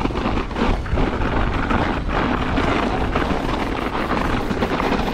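Steady wind buffeting on a helmet-mounted action camera while a mountain bike is being ridden, a loud, even rumble throughout.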